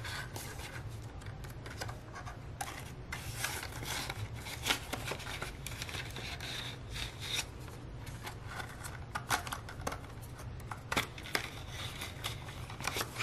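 Paper bills and a cash envelope rustling and crinkling as the cash is taken out and slid into a new envelope in a ring binder, with many small taps and clicks throughout.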